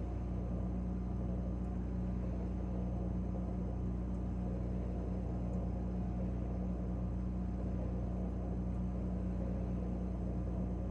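Refrigerator running: a steady low hum with several constant tones that does not change.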